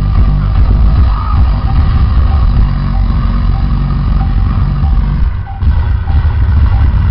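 Loud, bass-heavy music played over a large party sound system, with a brief dip about five and a half seconds in.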